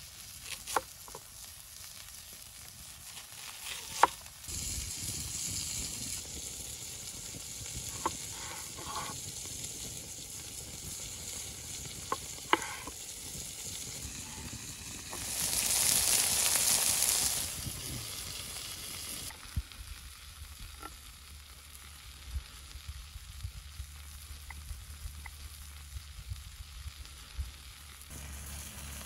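Burger patty sizzling on a hot stone slab over a wood fire: a steady hiss that swells louder for about two seconds midway. A few sharp knife strokes on a wooden cutting board cut through it.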